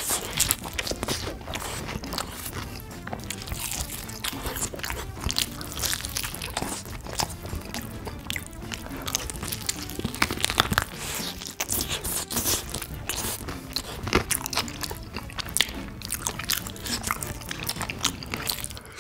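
Crisp crunching bites into honey-glazed fried chicken and chewing, close to the microphone, as short crackles that come thick and fast throughout. Music plays underneath.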